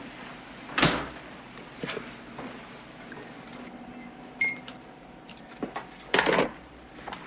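A refrigerator door shuts with a thump about a second in, followed by quiet handling clicks, a short high beep midway and a brief clatter near the end.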